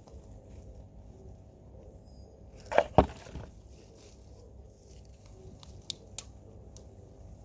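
Two sharp knocks close together about three seconds in, followed by two fainter clicks a few seconds later.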